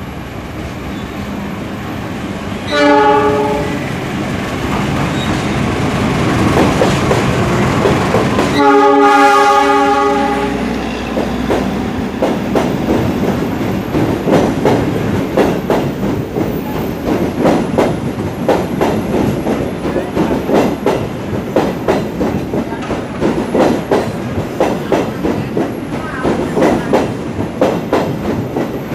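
A train approaches and sounds its horn twice, a short blast and then a longer one of about two seconds. Its cars then pass with a steady, rapid clickety-clack of wheels over the rail joints.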